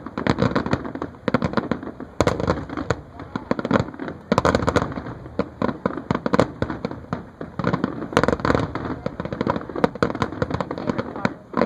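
Fireworks show: a rapid, irregular barrage of aerial shell bursts and crackling, many bangs a second with no let-up.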